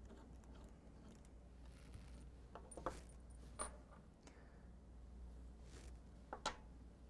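A few faint, light clicks of a screwdriver and small screws being handled against near silence, as the two screws holding the injector cover to the Fleck 2510 valve body come out.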